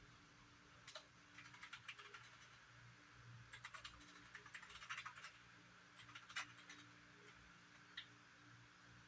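Near silence with a faint low hum, broken by small irregular clusters of light clicks and ticks, the sharpest a little after six seconds in.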